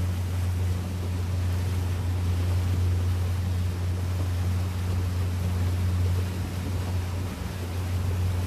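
A boat's engine running at a steady speed, a constant low drone under a hiss of water and wind.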